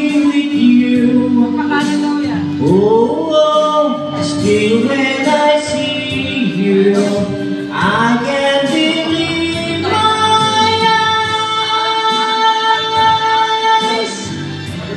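A man singing into a microphone with music, his melody gliding up and down, then holding one long steady note for about four seconds near the end.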